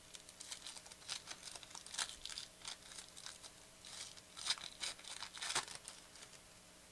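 Foil wrapper of a 2014-15 Panini Prizm basketball card pack being torn open and crinkled by hand: a run of sharp crackles, loudest about four and a half to five and a half seconds in.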